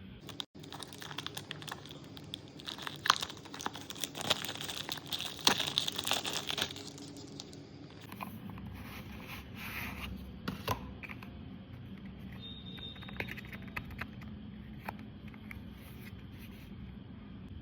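Product packaging being unboxed: crinkling and tearing of plastic and paper wrapping with sharp clicks for the first several seconds, then fewer scattered clicks and taps as the box and its contents are handled.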